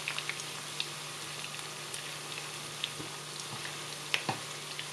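Skin-on pork belly slices frying in shallow oil in a nonstick pan: a steady sizzle with scattered pops and crackles from the skin, the sharpest pops about four seconds in.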